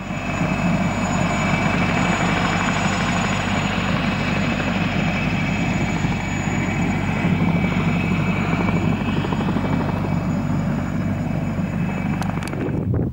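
Helicopter turbine engine and main rotor running close by, a steady loud sound with a high turbine whine on top. It cuts off shortly before the end.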